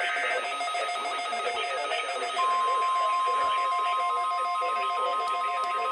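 The last burst of an Emergency Alert System SAME data header, a two-tone warble, ends just after the start. About two seconds in, the NOAA Weather Radio warning alarm tone begins: a single steady 1050 Hz tone that holds. Both play over radio hiss with a faint pulsing beep in the background.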